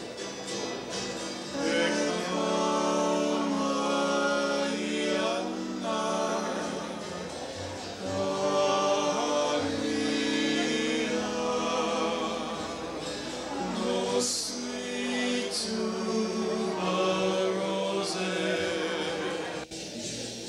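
Small string band of guitar, ukulele and upright bass with male voices singing in harmony. The singing comes in about two seconds in and eases off briefly in the middle.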